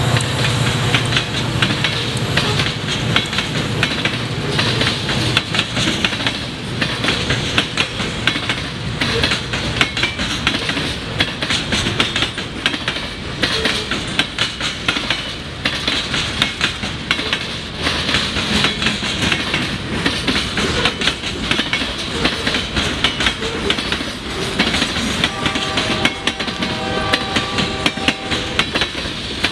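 Freight cars of a long train rolling past at speed, a steady rumble with the wheels clacking rapidly over the rail joints. Near the end a few seconds of steady high ringing tone join in.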